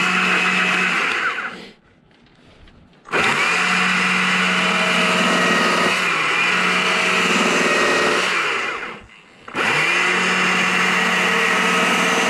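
Gas chainsaw running at full throttle as it cuts into a wood carving log. The engine winds down and drops away twice, about a second and a half in and again near the nine-second mark, then comes straight back to full revs each time.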